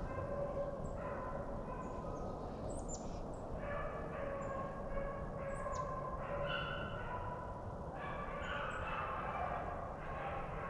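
A pack of rabbit hounds baying on a rabbit's trail, several voices overlapping in drawn-out calls. Short high chirps sound over them.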